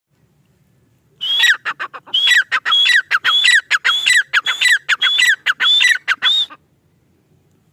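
Male grey francolin (teetar) calling: a loud, shrill phrase repeated rapidly about eight times over some five seconds, starting about a second in and then stopping.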